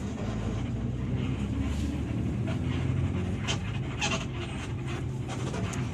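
Diesel bus engine running with a steady low rumble, with a few short clicks or knocks over it.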